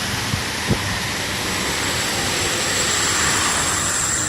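Highway traffic in the rain: a steady hiss of tyres on wet pavement, swelling a little about three seconds in, with two short thumps in the first second.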